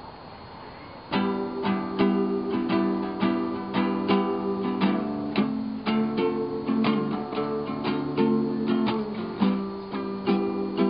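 Acoustic guitar strumming chords in a steady rhythm, starting about a second in after a moment of faint hiss.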